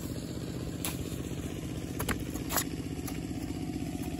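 A small engine running steadily at idle, with shovels and a hoe scraping and knocking into damp soil a few times as a drainage trench is dug.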